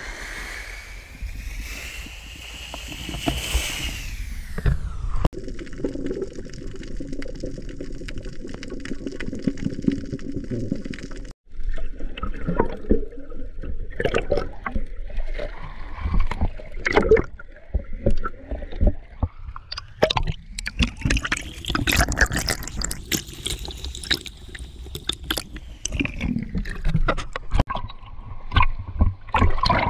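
Sea water splashing and gurgling around an action camera as it goes under and back above the surface, with many scattered clicks and knocks. A whine glides up in pitch at the start, and another rises and falls over several seconds later on.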